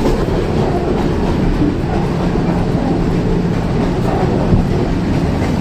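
Old passenger train running on the rails, a steady low rumble of the moving carriage, recorded on a phone.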